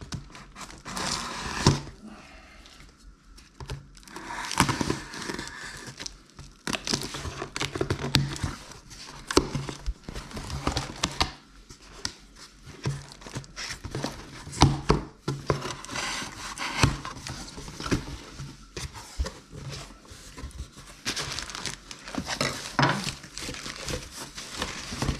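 Cardboard and plastic packaging being handled, torn and crinkled while a fishing reel is unboxed, with irregular rustling, tearing and small knocks.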